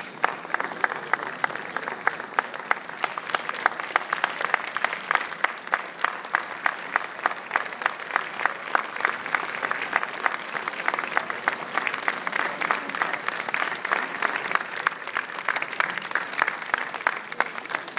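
Audience applauding steadily, with one pair of hands clapping close by, loud and evenly spaced, over the crowd's dense clapping.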